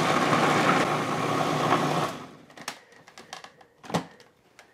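Food processor motor running at full speed, chopping carrot, onion, red pepper and mushrooms fine, then stopping about two seconds in. A few light clicks and a knock follow as the plastic bowl is handled.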